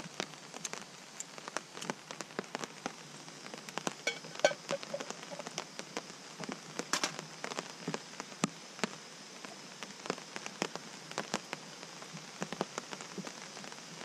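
Steady rain, with many irregular drops tapping sharply close by and a few louder ones.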